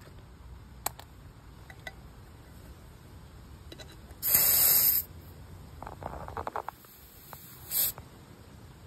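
Air hissing sharply from a tire's valve stem for under a second, about four seconds in, as a dial tire-pressure gauge's chuck is pushed onto it. A few light clicks from the gauge follow, then a second, shorter puff of air near the end.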